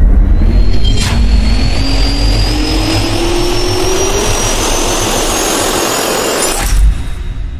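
Jet turbine sound effect spooling up: a loud steady rush with a whine that rises slowly in pitch, a sharp click about a second in, then dropping away suddenly near the end.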